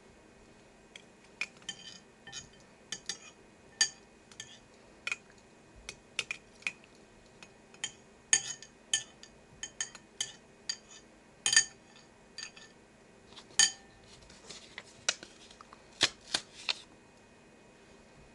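Irregular light clinks and clicks with a short ringing edge, like a small metal or glass object tapping against a dish, about two dozen of them with a few sharper ones among them.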